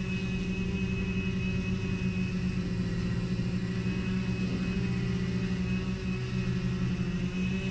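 Sky-Hero Spyder 6 hexacopter's six electric motors and 16-inch propellers humming steadily with a constant pitch as the copter is brought down after a malfunction.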